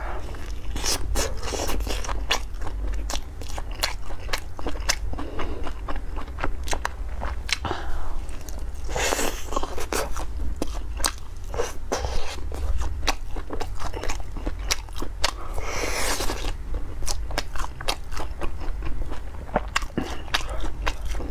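Close-miked eating of spicy fried skewers: crisp crunching and wet chewing with many small mouth clicks, and longer, louder crunching about nine and sixteen seconds in. A steady low hum runs underneath.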